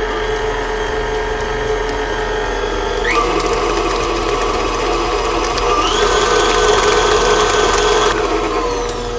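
Electric stand mixer running with its flat paddle beating creamed butter, sugar and eggs into cookie dough in a steel bowl. The motor whine steps up in pitch about three seconds in and again around six seconds as the speed is raised, then drops back near the end.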